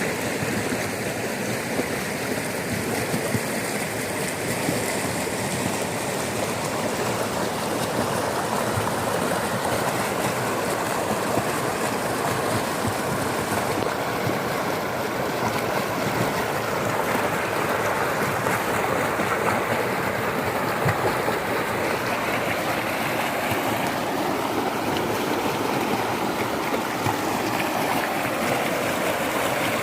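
Fast-flowing floodwater rushing steadily, a dense continuous rush of water.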